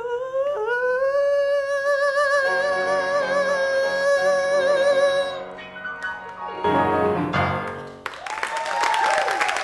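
A man holds the last sung note of a song with vibrato for about five seconds over grand piano chords, then the piano plays a closing chord or two. Audience applause breaks out about eight seconds in.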